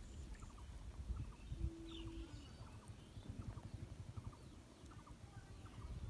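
Faint outdoor ambience: a low rumble, likely wind on the microphone, under scattered short bird chirps, with a brief steady hum starting about a second and a half in.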